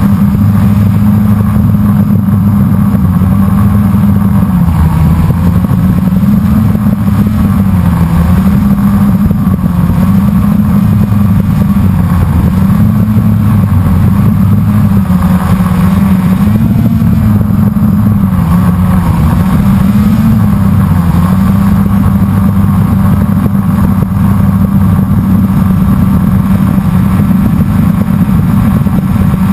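Blade 350 QX quadcopter's brushless motors and propellers humming loudly, heard from the drone's own onboard camera. The pitch wavers up and down every second or two as the motors change speed to hold and steer the craft in flight.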